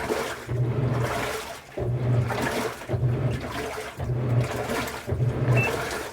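Washing machine running with water sloshing in the drum, and a low motor hum that pulses in a regular rhythm about once a second.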